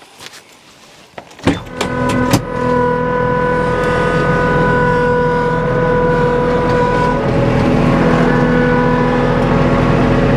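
STIHL MS 462 two-stroke chainsaw pulled over twice and catching about two seconds in, then running loudly at a steady speed.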